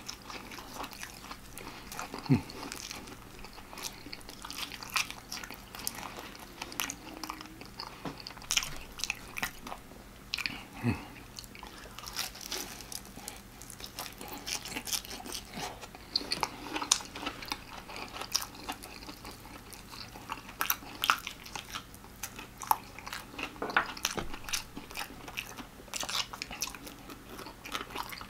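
Close-up eating of extra-crispy fried chicken: crunchy bites and chewing, with irregular sharp crackles of breading throughout.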